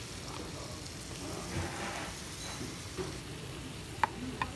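Pork belly sizzling on a hot tabletop grill pan, a steady hiss, with two sharp clinks of tableware near the end.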